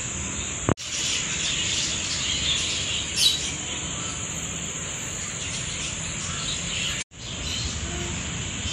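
A flock of caged small parrots chattering and chirping in a steady high-pitched din, with one louder sharp call about three seconds in.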